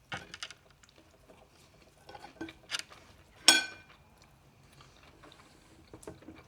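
Tableware clinking at a meal: a few light knocks and taps, then one sharp clink about three and a half seconds in that rings briefly.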